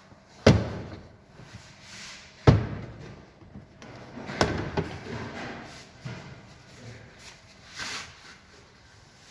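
Two heavy bangs about two seconds apart, then a lighter bang and some quieter knocks and clatter from work on a car.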